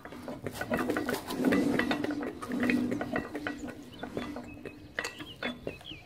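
Old diesel engine with a large flywheel being turned over by a hand crank, not yet firing: irregular mechanical clicks and clanks from the crank and engine.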